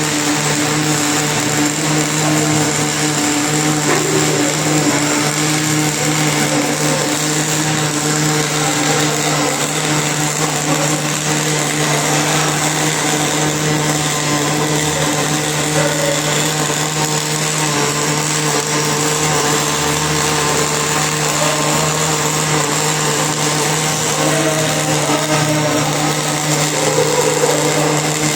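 MIG welding arc crackling steadily and without a break, over a steady low hum.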